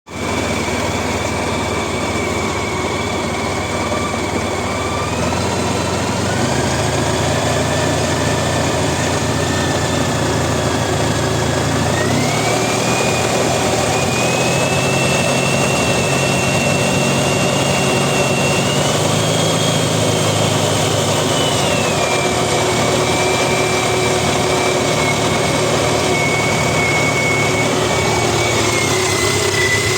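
Honda ST1300's 1261 cc V4 engine running, its pitch stepping up a few times and dropping back once, recorded to show a rattling noise the owner is chasing.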